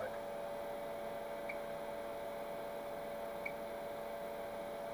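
Steady electrical hum from a bench of running electronic test instruments, with a few faint short ticks.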